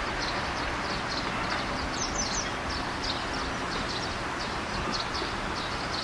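Outdoor ambience: a steady background rush with a small bird chirping over it, short high chirps about twice a second.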